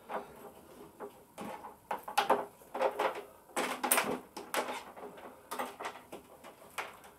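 Hands handling wiring and plastic parts at the front of a motorcycle: irregular clicks, scrapes and rustles, busiest in the middle.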